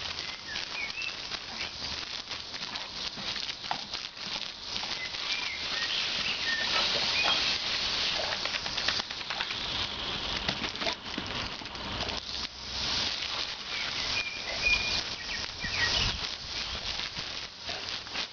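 Jet of water from a garden hose spraying with a steady hiss, pattering and splashing as a staghound bites and snaps at the stream.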